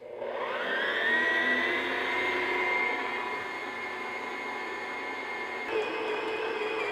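Stand mixer motor switching on and running at low speed while its dough hook kneads flour and water into bread dough. The whine rises in pitch as the motor spins up in the first second, then runs steadily, with a shift in tone about six seconds in.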